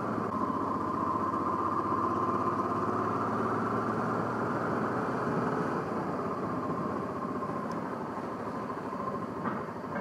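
Honda Africa Twin motorcycle running steadily as it is ridden at low speed, a constant engine hum with a faint high tone that fades partway through.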